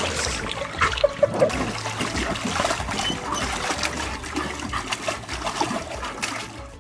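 Water splashing and trickling as a golden retriever moves about in a shallow inflatable pool, fading near the end.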